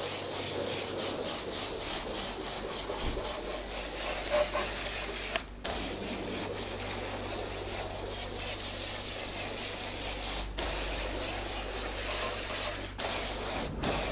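Self-service wash-bay pressure lance spraying foam in a steady hissing jet, over a steady low hum. The spray breaks off briefly a few times.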